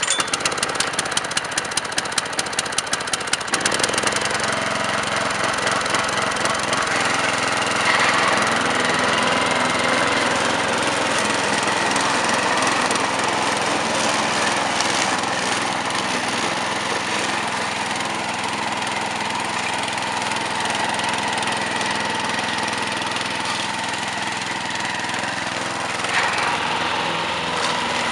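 Hayter Harrier 48 petrol lawn mower engine running. It pulses sharply several times a second for the first few seconds, just after catching, then runs evenly as the mower moves over grass.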